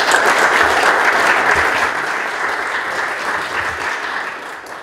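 Audience applauding, loudest at the start and dying away toward the end.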